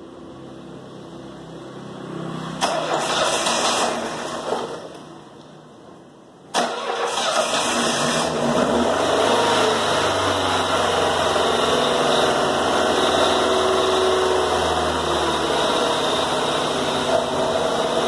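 Volkswagen Gol car engine being started: a first burst of engine sound about two and a half seconds in dies away, then about six and a half seconds in the engine starts abruptly and keeps running steadily.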